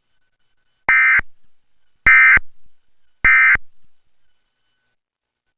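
Emergency Alert System End of Message signal: three short bursts of SAME digital data, a harsh two-tone warble about a second apart, marking the end of the alert.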